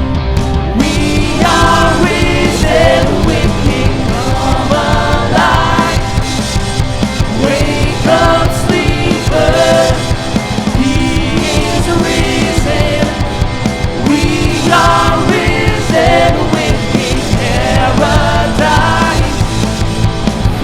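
A song with a singing voice over a full band with drums, playing continuously.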